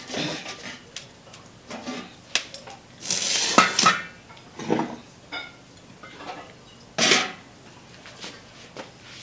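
Metal cookware clattering: pot lids and a large metal serving spoon knocking and clinking against aluminium and enamel pots. There is a longer rattling clatter with ringing about three to four seconds in and a sharp clank near seven seconds.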